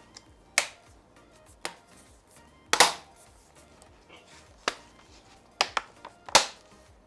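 Snap clips of an HP Victus laptop's bottom cover clicking into place as the cover is pressed down around its edges: a series of about seven sharp clicks at irregular intervals, showing the cover locking on.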